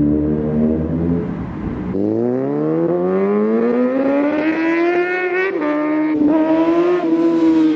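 Kawasaki Ninja 636 sport bike's inline-four engine accelerating hard, its pitch rising steadily for a few seconds, then dropping twice in quick succession at gear changes and climbing again.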